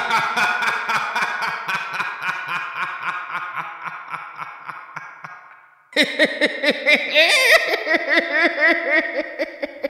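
A man's voice acting a cartoon tiger's long gloating laugh, rapid 'ha-ha-ha' pulses about five a second that fade out near six seconds, followed by a second laughing bout with a wavering pitch.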